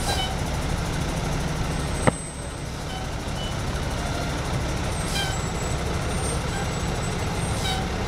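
A large truck's engine idles with a steady low rumble. A single sharp click or knock comes about two seconds in.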